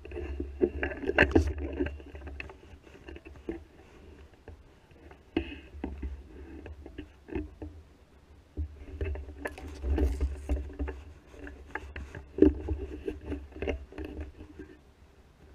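Handling noise from a camera mounted on a gun: irregular knocks, clicks and scraping with a low rumble in stretches as the gun is shifted and aimed.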